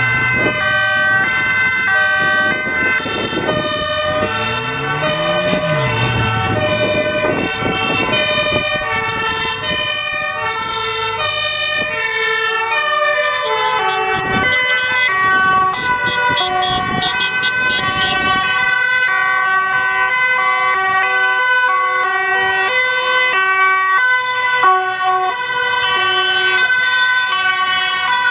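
Sirens of several Dutch emergency vehicles passing in convoy, many two-tone sirens sounding at once and out of step with each other. A low rising-and-falling wail sounds a few seconds in, and a rapid pulsing tone joins around the middle.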